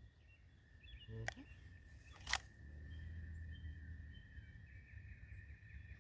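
Two sharp clicks about a second apart, the second louder, from handling the metal hardware of an SKS rifle sling while loosening it, over a faint steady high-pitched whine.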